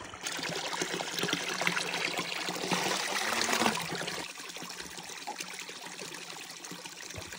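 A small trickle of water falling from a snowbank into a pool, filling a plastic water bottle held under it. The louder filling stops about four seconds in, leaving the quieter trickle.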